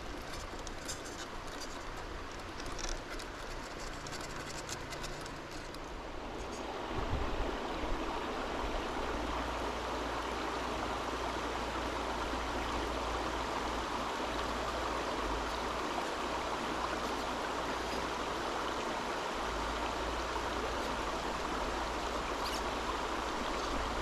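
River water rushing steadily, growing louder about seven seconds in. It is quieter at first, with scattered light ticks and crackles.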